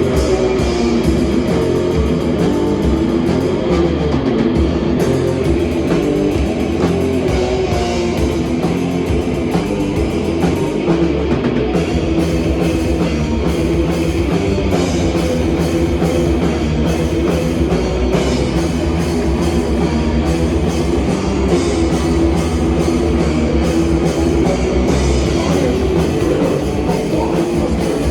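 A rock band playing loud and without a break: guitar and drum kit, in a heavy rock style.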